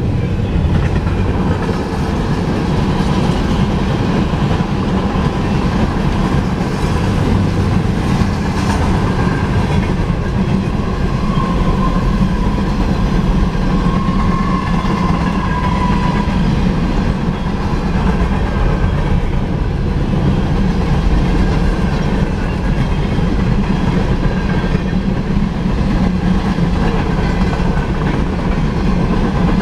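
Freight train cars rolling steadily past, a continuous rumble of steel wheels on the rails.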